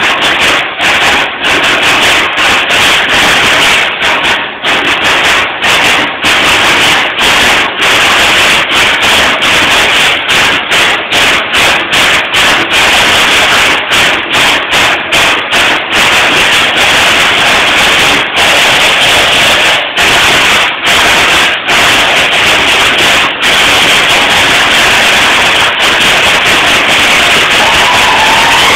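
A high school percussion ensemble drumming together on a row of drums, loud and dense, with many brief breaks between strokes and phrases.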